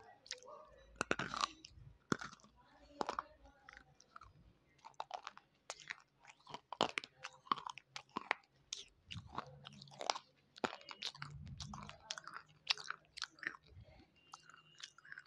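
Wet slate pencil bitten and chewed right at a clip-on microphone: a long run of sharp, irregular crunches and clicks.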